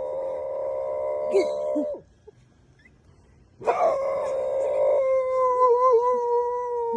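A dog howling: two long, steady howls, the second ending in a sharp drop in pitch.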